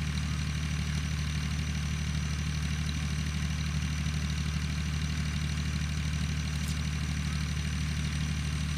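A steady low mechanical hum, like an engine running at idle, holding even throughout, with a single faint click near the end.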